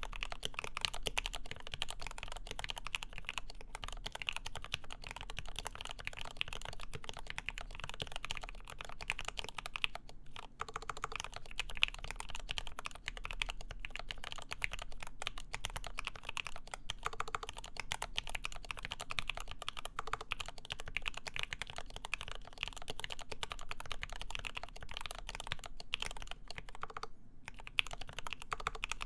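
Continuous fast typing on a Lin Works EM7 mechanical keyboard with lubed ZealPC Tealios linear switches, a full aluminium plate and GMK Honeywell keycaps: a dense stream of keystroke clacks, with two short pauses, about a third of the way in and near the end.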